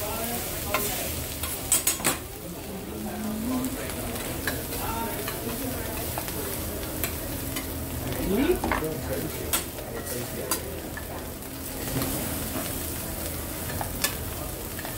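Food sizzling on a hibachi (teppanyaki) griddle, with metal spatulas scraping and tapping on the hot steel plate. Scattered sharp clicks run through it, with a quick cluster about two seconds in.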